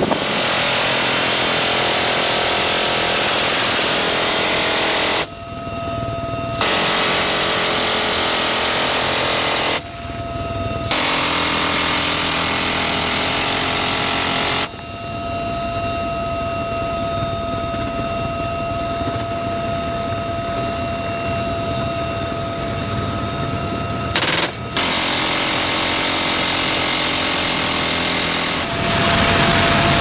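Door-mounted minigun on a UH helicopter firing long, continuous bursts, each a fast buzzing stream of shots; there are four long bursts and one very short one. Between the bursts the helicopter's steady engine whine carries on.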